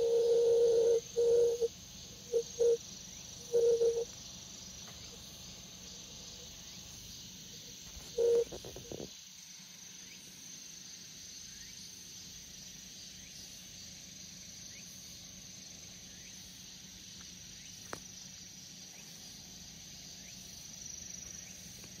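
Grass insects chirring steadily in a thin, high band. In the first few seconds a louder steady hum cuts in and out in several short bursts, once more about eight seconds in, then stops.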